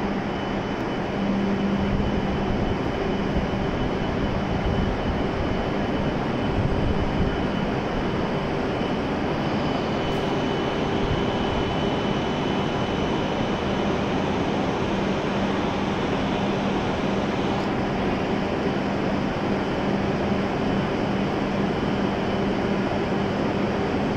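Steady hum of a stationary E7-series shinkansen train, its onboard air-conditioning and equipment blowers running at the platform, while a passenger door slides open partway through.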